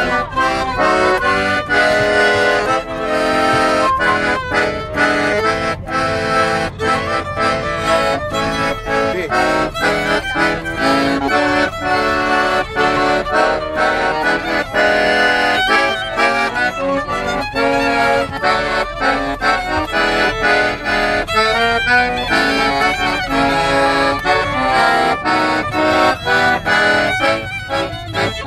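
A piano accordion and a violin playing a fast-moving folk tune together, the accordion loudest.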